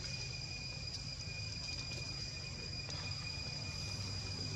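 Insects singing one steady, unbroken high-pitched whine, over a low steady rumble.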